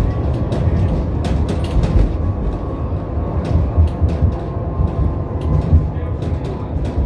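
Tram running along its track: a steady low rumble of wheels on rails, with frequent clicks and rattles.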